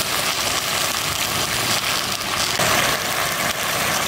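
Steady sizzling of the onion, tomato and aloe vera mixture frying in a hot iron kadai, swelling a little about two and a half seconds in.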